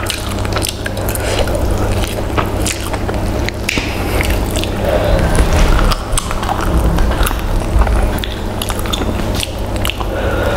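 Close-miked eating sounds: fingers squishing and tearing a whole fried chicken, with biting, chewing and many short wet smacking clicks, over a steady low hum.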